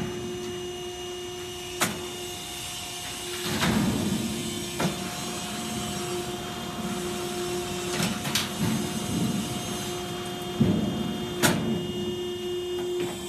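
Vertical Pittsburgh seam closer running, its motor humming steadily as the closing head travels along the duct's Pittsburgh lock seam. Several sharp metallic clicks and knocks are spread through it.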